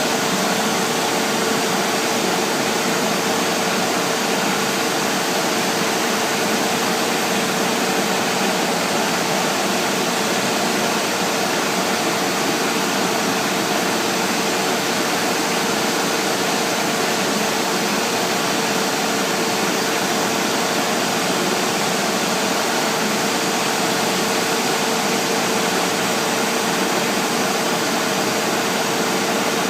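CNC router running steadily while machining MDF panels: a constant whine over a loud, even rushing noise, unchanged throughout.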